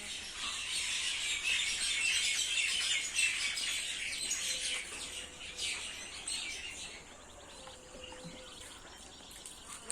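Many small birds chirping at once in a dense, busy chorus, which thins out and quietens over the last few seconds.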